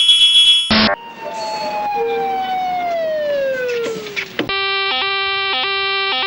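A run of alarm sound effects: a brief high-pitched pulsing alarm tone and a short buzz, then a siren tone that slides slowly down in pitch for about three seconds. After that comes a lower steady alarm tone cut by short gaps, about twice a second.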